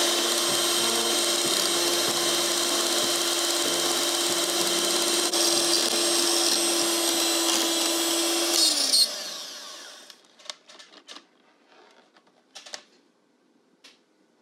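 Electric hand mixer whipping egg whites into pavlova meringue in a stainless steel bowl: a steady motor whine over the whirr of the beaters, which winds down and stops about nine seconds in. A few light clicks and taps follow.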